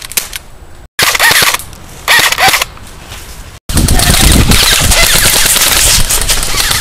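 Airsoft guns firing full-auto: two short bursts, then sustained rapid fire from a little past the halfway point. A heavy wind rumble on the microphone runs under the later firing.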